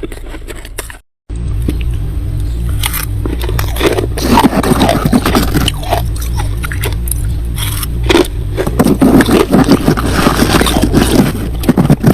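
Freezer frost being scraped, rough scratching in two spells over a steady low hum.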